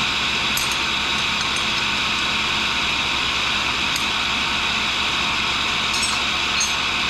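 A 1942 Cincinnati No. 2 tool and cutter grinder running with a steady whirr, the wheel not cutting. A few faint light clicks come through it.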